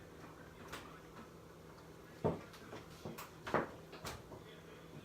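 Kitchen clean-up clatter: a handful of separate sharp knocks and clinks of dishes and cupboard or drawer doors being handled, two of them louder than the rest.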